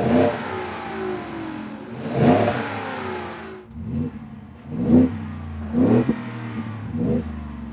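Ford F-150's 5.0L Coyote V8 revved at a standstill through its exhaust: first on the stock exhaust with two long revs that rise and fall, then on a Borla Touring dual rear-exit cat-back system with four quick throttle blips about a second apart, a mellow, subtle tone.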